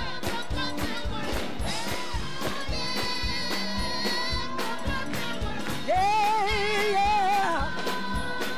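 Live gospel music: voices singing over a steady beat, and a solo voice comes in louder with a long, wavering phrase about six seconds in.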